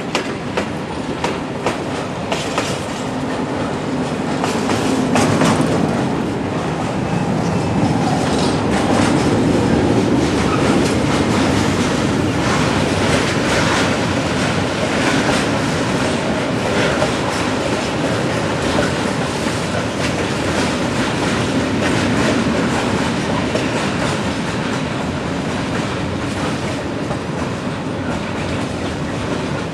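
Freight train of tank wagons rolling past behind electric locomotives: a steady rumble with wheels clicking over rail joints, the clicks coming in clusters as groups of axles pass.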